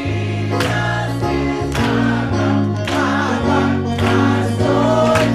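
Gospel music: voices singing over a band with a steady beat.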